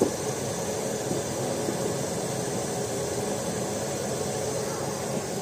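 Busy market ambience: a steady, dense background din with a brief knock right at the start.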